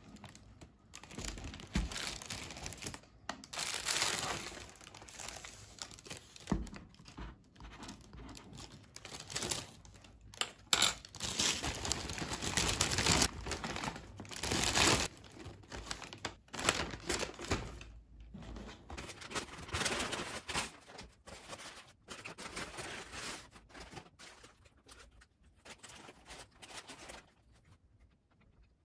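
Takeaway bag and food wrappers crinkling and rustling as a fast-food meal is unpacked, with light knocks as items are set down on a table. It tails off near the end.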